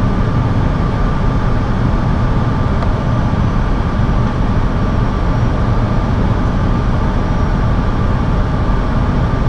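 Steady flight-deck noise of an Airbus A321 on final approach: rushing airflow and engine noise heard inside the cockpit, with a thin steady high tone running under it.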